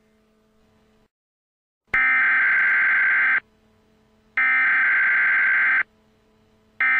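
Emergency Alert System digital header tones: loud bursts of harsh, rapid electronic screeching, each about a second and a half long with a second's gap between them. The first comes about two seconds in and the third begins near the end, with a faint low hum underneath the gaps.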